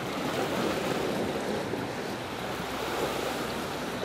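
Sea surf washing against shoreline rocks: a steady rushing noise, with wind on the microphone.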